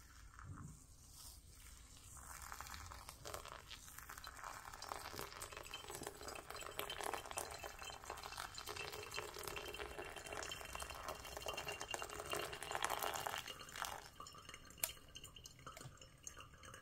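Hot water poured in a thin stream from a gooseneck kettle onto ground coffee in a paper filter, a soft trickle that builds up, is loudest just before it stops near the end, and is followed by a single sharp click.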